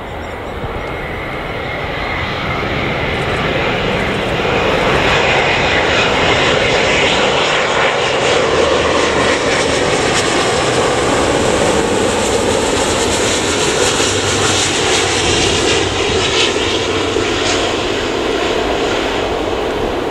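Airbus A350-900's Rolls-Royce Trent XWB jet engines on final approach, a loud steady rush of jet noise that builds over the first few seconds as the airliner passes close by, then eases slightly near the end as it comes down toward touchdown.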